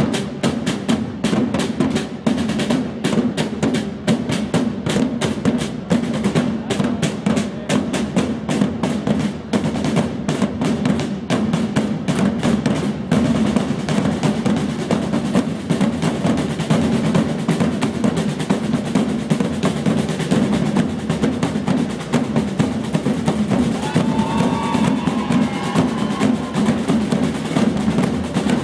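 A corps of side drums played together in a rapid, continuous drumming routine, with fast rolls and crisp snare strokes. The strokes are sharply separated for the first dozen seconds, then blend into more sustained rolling.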